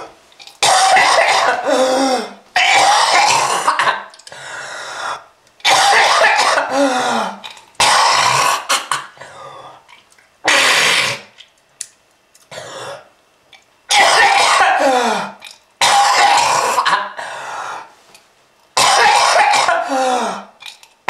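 A person's smoker's cough, coming in repeated loud coughing fits about every two seconds, about nine in all. Each fit ends in a voiced sound that slides down in pitch.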